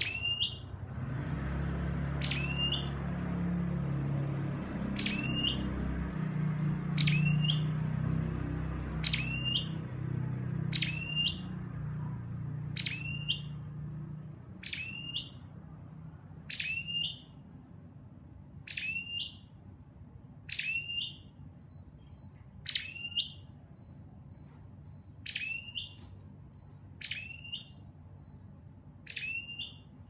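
A tailorbird ('chim sâu đầu đỏ') calls repeatedly. Each call is a short, sharp, high note that drops in pitch, given about once every two seconds. A low rumble runs under the calls for roughly the first twelve seconds and then fades out.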